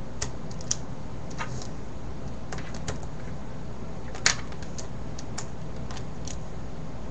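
Plastic pieces of a stickerless V-Cube 4 puzzle cube clicking as it is handled and reassembled by hand: scattered irregular clicks, with one louder snap about four seconds in, over a steady low hum.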